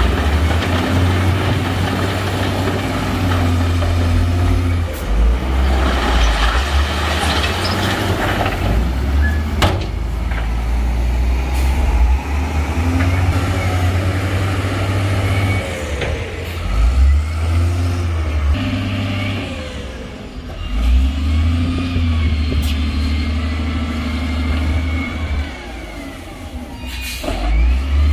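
Heavy diesel engines of dump trucks and a wheel loader running, revving up and easing off again and again, with a few sharp knocks along the way.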